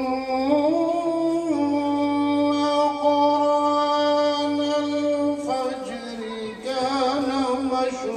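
A man's voice reciting the Quran in melodic tilawat style into a microphone: one long held note, stepping down slightly about a second and a half in and sustained until about five seconds, then a wavering, ornamented phrase.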